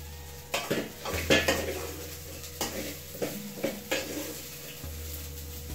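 A metal spatula scraping and clinking against the sides and bottom of an aluminium pot, about ten irregular strokes, as small fried omena fish are stirred. A light frying sizzle runs underneath.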